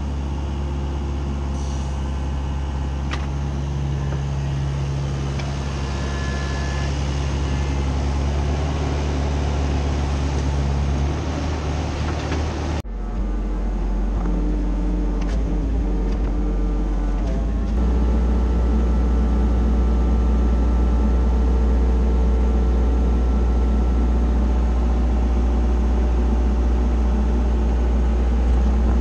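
Caterpillar 304CR mini excavator's diesel engine running steadily while the machine works its arm and grapple. The sound breaks off sharply about halfway through and resumes, heard from the operator's cab, and the engine runs louder for roughly the last ten seconds.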